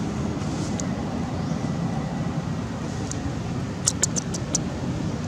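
Steady low rumbling outdoor background noise, with a quick run of five or six sharp clicks about four seconds in.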